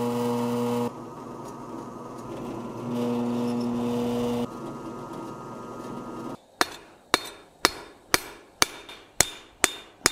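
Drill press motor humming steadily as a twist bit drills through the steel spatula blade; the hum drops away about a second in and comes back briefly. Then, from about six and a half seconds in, a hand hammer strikes on the anvil steadily about twice a second, each blow ringing briefly, peening the rivet that joins the handle to the blade.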